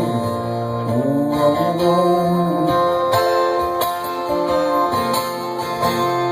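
Live band playing an instrumental stretch, with acoustic guitars strummed and picked.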